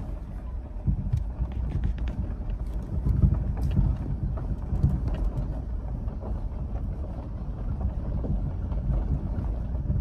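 Low, uneven rumble of a moving vehicle with wind buffeting the microphone, and scattered light clicks and rattles over it.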